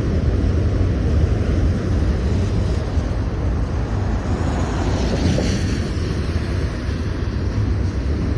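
Norfolk Southern manifest freight train's cars rolling past with a steady low rumble, with some wind noise on the microphone.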